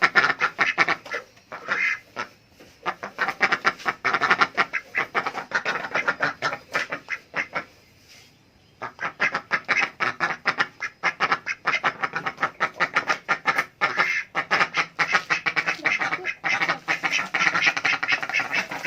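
Adult ducks quacking rapidly and without letup, the calls of ducks begging for food, with a brief lull about eight seconds in.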